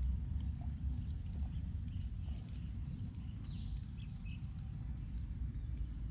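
Outdoor ambience dominated by a steady low rumble of wind on the microphone, with a constant high-pitched insect drone and faint short chirps scattered through the first few seconds.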